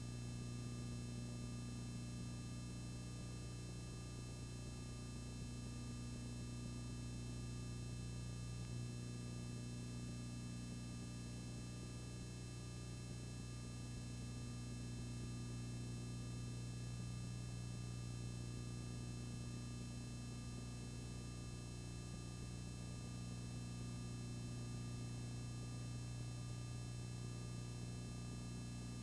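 Steady low electrical hum with faint hiss and nothing else, the background noise of a silent home-movie film transfer.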